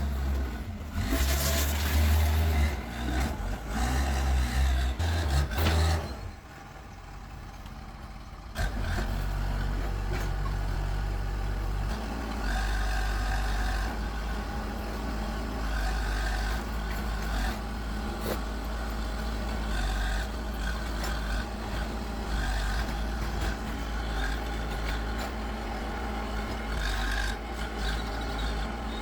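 A heavy vehicle's engine running. It pulses loudly at first, drops off briefly about six seconds in, then returns as a steady low drone.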